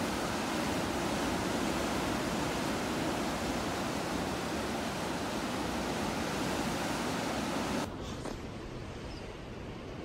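Sea waves breaking on a rocky shore: a steady rushing wash of surf that cuts off suddenly about eight seconds in, leaving a quieter outdoor background.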